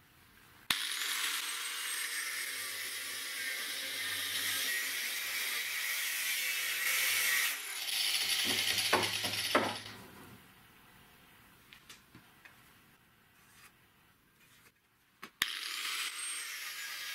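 Angle grinder with an abrasive cut-off disc cutting a steel pipe clamped in a vise: it starts suddenly under a second in and runs as a steady high hiss with a short break for about nine seconds, then stops. A few light clicks follow as the pipe is handled in the vise, and the grinder starts cutting again near the end.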